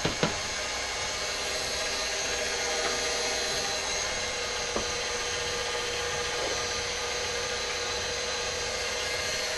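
Stand mixer motor running steadily, whisking eggs in the bowl with a constant hum. There are a couple of light knocks right at the start.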